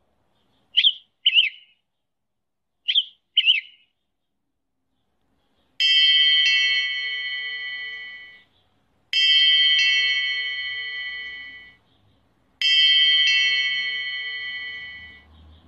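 Intro sound effects: two pairs of short chirps, then three struck chime tones, each ringing out and fading over about two and a half seconds.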